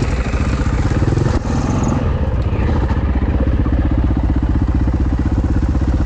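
Husaberg dirt bike's single-cylinder engine running at low revs, changing for the first two seconds and then settling into a steady idle.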